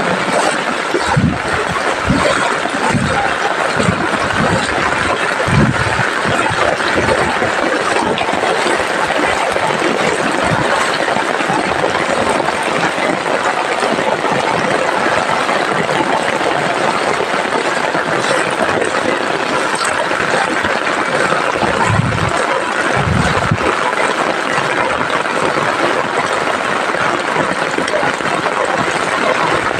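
Heavy rain falling steadily, a continuous loud hiss of rain, with a few short low sounds in the first few seconds and again about twenty-two seconds in.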